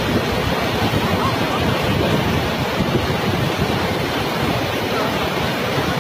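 Muddy flash-flood torrent rushing past, a dense, steady noise of churning floodwater.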